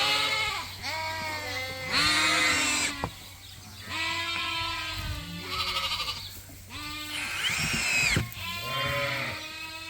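A flock of ewes and lambs bleating, call after call overlapping, some low and some high-pitched, over a steady low hum.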